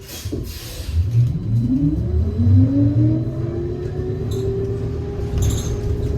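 Electric trolleybus (2015 New Flyer XT60) with a Skoda traction motor and Kiepe drive pulling away, heard from inside the cabin. Its motor whine rises in pitch over about three seconds and then holds steady, over a low rumble of the moving bus, with a few brief rattles.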